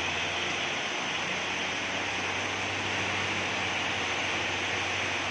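Steady hiss of heavy rain, with a truck's diesel engine running low underneath.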